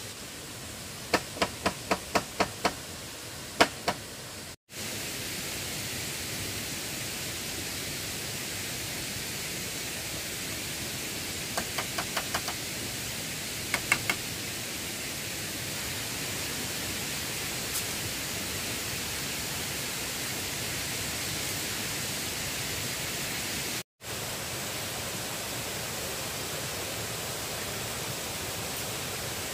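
A quick run of sharp tool strikes on wood or bamboo, about seven blows at roughly four a second, followed by two more. Later come a few short runs of lighter taps. A steady hiss of background noise runs underneath, and the sound drops out completely for a moment twice.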